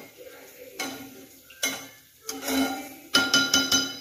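Flat spatula scraping and stirring masala-coated chicken pieces in a frying pan, with a quick run of about five sharp, ringing taps on the pan about three seconds in.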